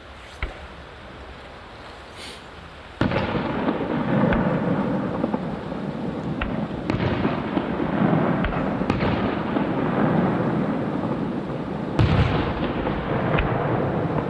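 Aerial fireworks: a lone sharp pop, then about three seconds in a sudden dense barrage of shells bursting with booms and crackling. Several sharper bangs cut through it, the loudest about twelve seconds in.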